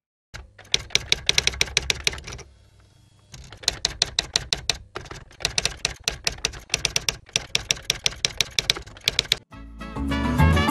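Typewriter keys clacking as a sound effect, about eight keystrokes a second, in runs broken by short pauses. Music with a strong bass comes in near the end.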